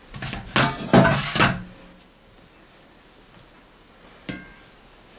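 Metal utensil scraping and clattering against cast-iron skillets and cookware for about a second and a half while ground beef is spread on pizza crusts. A single light metallic tap with a short ring comes about four seconds in.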